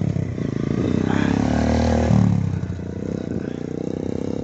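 Trail (dirt) motorcycle engine accelerating as it rides past. Its pitch climbs for about two seconds, then drops and fades as the bike moves away.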